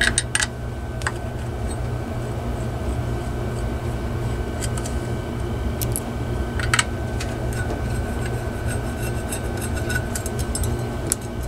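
Light metal clicks and clinks from a small heater fan motor and its blade being handled, a louder click about seven seconds in and a run of faint quick ticks near the end, over a steady low hum.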